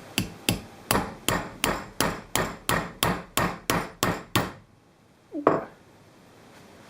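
About thirteen hammer blows in a steady rhythm, roughly three a second, struck to try to break free the Loctite-bonded retaining ring on a CNC router spindle shaft; the ring does not give. A single separate knock follows about a second after the last blow.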